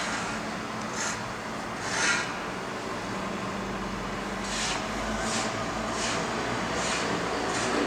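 Steady urban traffic noise with a low hum and several short hissing bursts, more frequent in the second half.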